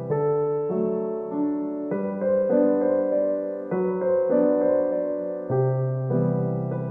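Background music: a gentle electric piano playing slow chords and a melody, notes struck about once every half second to a second.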